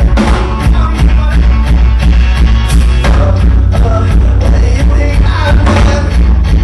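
Indie rock band playing live and loud: a steady drum beat of about four hits a second, electric guitar and bass, with a voice singing over it.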